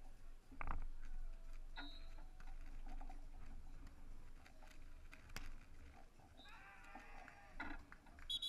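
Beach volleyball being played: a sharp hit on the ball about a second in and a few lighter knocks later. A raised voice calls out briefly and then holds a call for about a second near the end.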